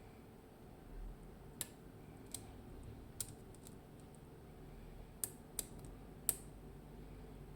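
A dimple pick working inside a Mottura C55 dimple lock cylinder during picking: six sharp, light clicks at uneven intervals, with a soft low thump about a second in.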